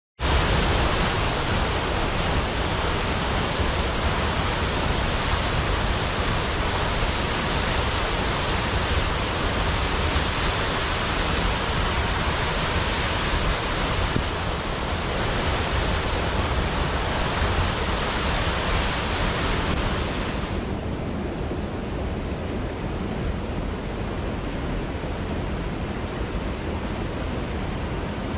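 A mountain waterfall rushing with a steady roar of falling water. About twenty seconds in, the sound turns duller and a little quieter as its hiss drops away.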